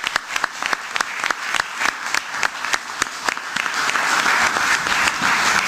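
Audience applause: separate claps at first that thicken into dense, steady clapping about four seconds in.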